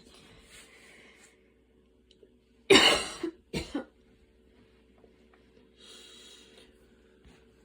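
A woman's asthma cough: one loud cough about three seconds in, quickly followed by a second, shorter one, with breathy inhales before and after.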